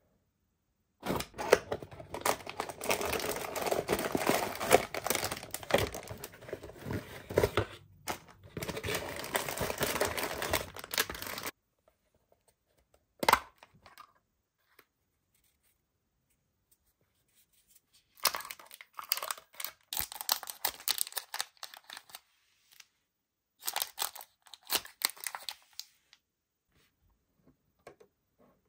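Toy packaging torn open and crinkled by hand: a long stretch of about ten seconds, a single click, then two shorter spells of rustling and crinkling.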